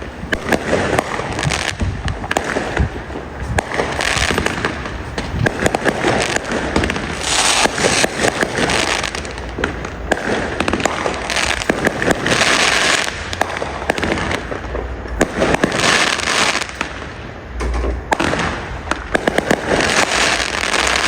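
Fireworks going off: a continuous run of sharp pops and crackles, with a flare of hissing crackle every two seconds or so.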